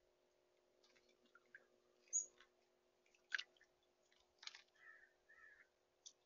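A chickadee bathing in a birdbath: a few quick, faint splashes of water and fluttering as it dips and shakes, with a short high chirp about two seconds in.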